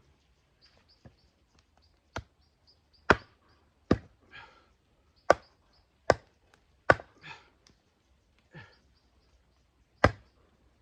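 Axe with a large round of wet firewood stuck on its blade being slammed down onto a wooden chopping block, about seven hard wooden knocks at uneven intervals: the reverse-axe method of splitting, with the round not going through.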